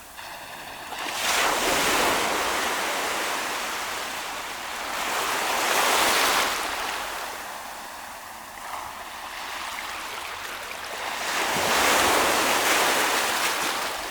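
Ocean waves breaking and washing up the shore, three surges a few seconds apart that each swell up and fall away.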